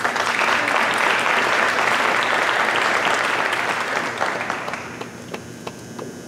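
Seated audience applauding, a dense steady clapping that dies away about five seconds in, leaving a few last scattered claps.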